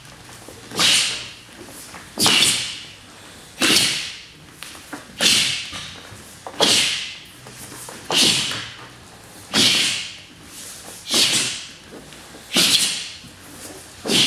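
Taekwondo doboks snapping in unison as a group performs a pattern, one sharp swish about every second and a half with each technique.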